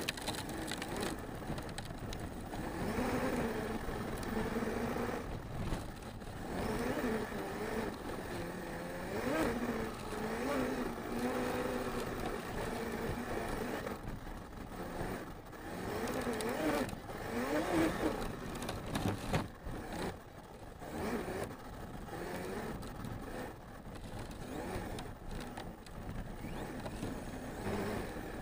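Arrma Mojave 6S RC truck's brushless electric motor whining and drivetrain running as it drives over dirt and gravel, the pitch rising and falling with throttle, over tyre noise.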